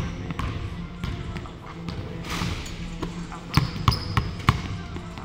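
Basketball bouncing on a hardwood gym floor. There is a sharp bounce at the start, then three quick bounces about three and a half to four and a half seconds in, over a low steady hum.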